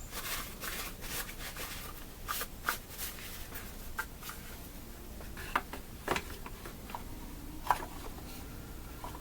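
Light clicks, scrapes and rubbing as chainsaw parts are handled and fitted on a workbench, with a few sharper knocks in the second half.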